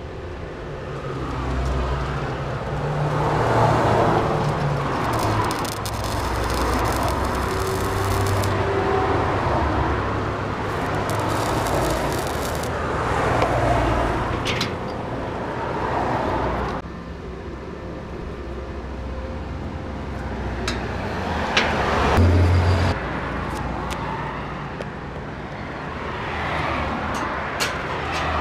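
Stick arc welding with a Resanta 190 inverter welder: the arc crackles and sizzles in long runs, with a short drop-off about two-thirds of the way through before it strikes up again.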